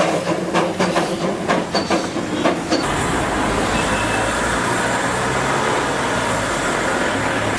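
Darjeeling Himalayan Railway B-class steam tank locomotive working at low speed, its cylinders and drain cocks puffing steam in a quick rhythm of about three sharp chuffs a second with hissing between. About three seconds in this gives way to a steady rushing hiss with a low rumble as the engine stands blowing smoke from its chimney.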